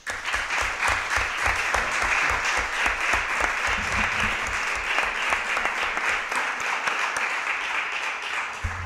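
Audience applauding, a dense steady patter of many hands clapping that starts suddenly and dies away near the end.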